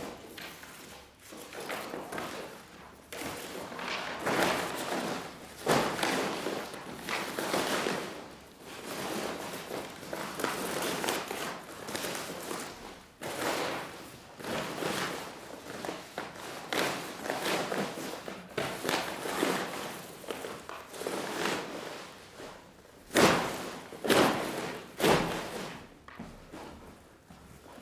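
Large paper sheets rustling and crumpling as they are stuffed by hand into a hessian sack, in irregular surges. Several loud thumps near the end as the sack is handled on the wooden floor.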